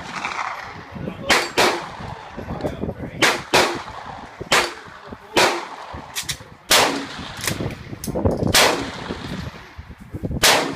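Gunshots from rifles on an outdoor firing range: about a dozen sharp reports at irregular intervals, a few in quick pairs, each with a short echo.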